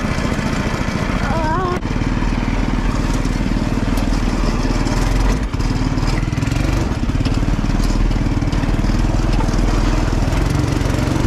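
Off-road go-kart's small engine running steadily under throttle, close up, with wind rushing over the microphone as the kart drives over gravel and grass. The engine eases off briefly about five seconds in.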